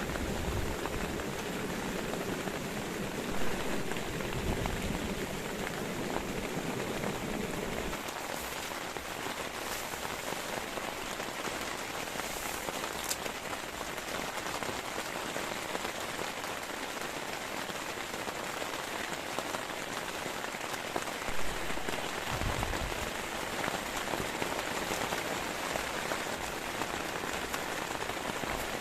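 Heavy rain falling steadily. For the first eight seconds or so there is a deeper rushing layer under it, which then drops away.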